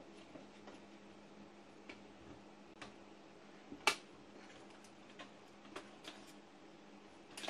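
Scattered small clicks and taps of hands handling parts and wiring inside a record player's case, with one louder click a little under four seconds in, over a faint steady hum.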